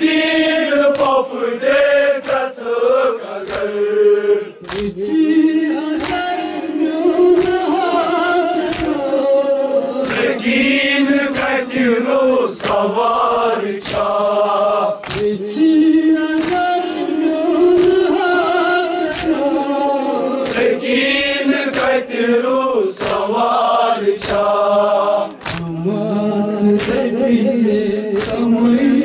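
A group of men chanting a noha (mourning lament) in unison, over the slap of rhythmic chest-beating (matam) at a steady beat of about one to two strikes a second.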